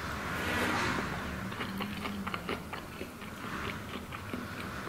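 A person slurping up a mouthful of spicy ramen noodles, then chewing with quick wet smacking clicks.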